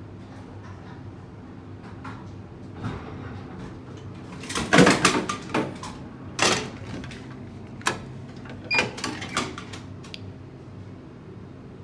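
Bottled-drink vending machine delivering a bottle: a quick cluster of clattering clunks about halfway through, then a few single sharp clicks as the delivery flap is pushed open and the bottle is pulled out.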